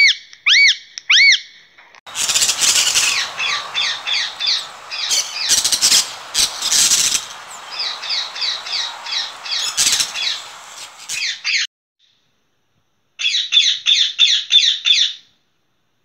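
Green parrots calling: a few separate arching squawks, then a long run of rapid shrill chattering calls over a noisy background. After a short pause comes a quick series of about eight sharp notes.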